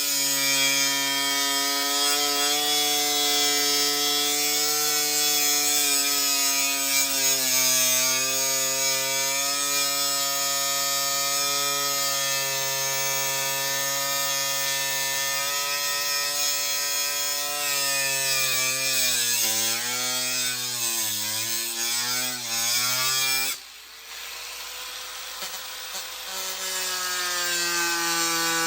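Electric power tool motor running hard and steady, its pitch sagging and recovering several times as it bogs under load. It stops about 23 seconds in, leaving a quieter scraping hiss for a couple of seconds, then spins back up near the end.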